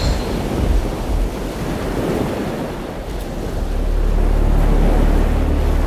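Steady rushing of ocean surf and wind. About halfway through, a low steady rumble comes in and the whole grows louder.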